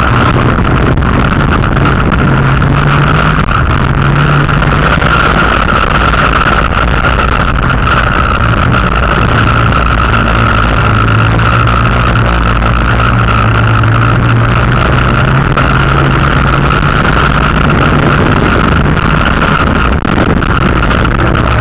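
Race car engine running hard, heard loud from inside the cockpit, its pitch stepping up and down as the driver works the throttle around a dirt track.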